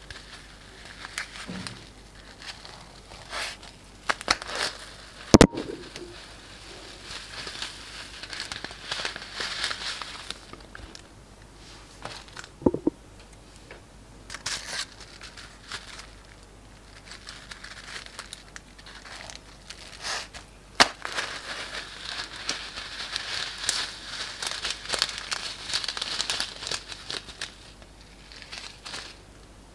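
Plastic piping bags crinkling as small foam beads pour out of them onto slime, a rustling hiss in two long stretches, with scattered crackles and one loud sharp click about five seconds in.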